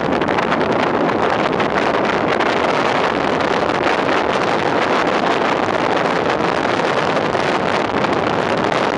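Steady wind rushing and buffeting over the microphone of a moving car, mixed with the car's road noise at cruising speed.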